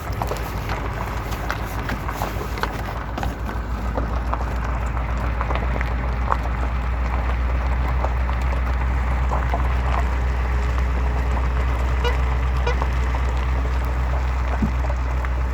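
Converted school bus driving over a rough forest road: a steady low engine drone that grows louder after a few seconds, with frequent rattles and knocks.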